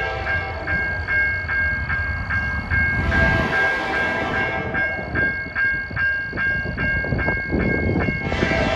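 Railroad grade-crossing bell ringing in steady, even strikes, a little over two a second, over a low rumble.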